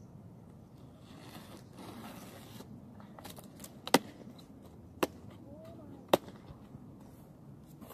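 Cardboard laptop box being torn open along its tear strip: a rasp of ripping cardboard about a second in, then small clicks and three sharp snaps about a second apart as the strip pulls free.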